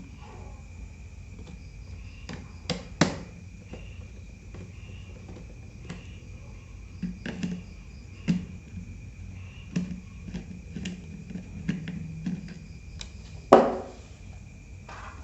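Scattered clicks and knocks of hands and small parts working on an opened Acer Aspire 3 laptop as its hard drive is being taken out. The two loudest knocks come about three seconds in and near the end, over a steady thin high chirr.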